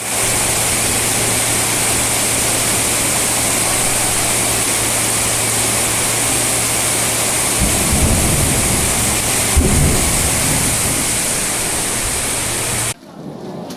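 Steady loud hiss of rushing or falling water after a heavy rain, with a low hum underneath and some low rumbling thumps about eight to ten seconds in. It cuts off abruptly near the end.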